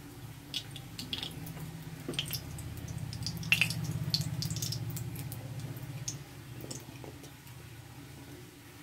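Hot cooking oil in a kadai crackling with scattered small pops as it heats over fried fish residue. A low steady hum lies beneath and swells in the middle.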